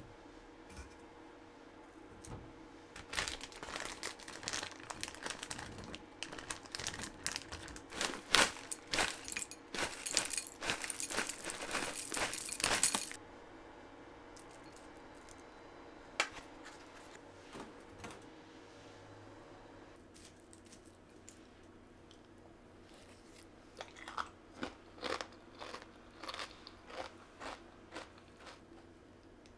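Granola poured from a crinkly bag into a glass bowl, a dense rustling and rattling for about ten seconds. Near the end a spoon knocks lightly against the glass bowl a few times.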